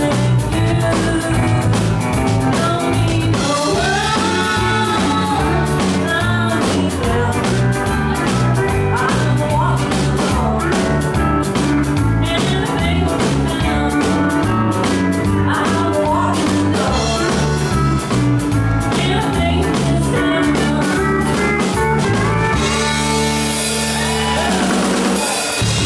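Live country band with a woman singing lead over guitar and drums at a steady beat. About 23 seconds in the band holds a final chord with a cymbal wash, ending the song.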